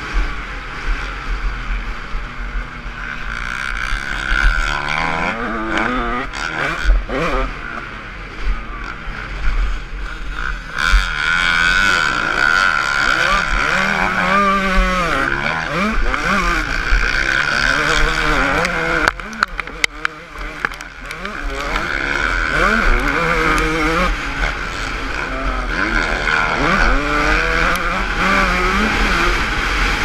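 Motocross dirt bike engine revving hard and falling off again and again as the rider shifts and brakes through the track, heard close up from a camera on the bike, with a constant low wind rumble on the microphone.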